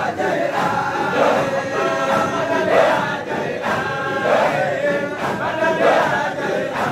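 A large crowd of men chanting dhikr together, loud sung phrases repeated over and over with no break.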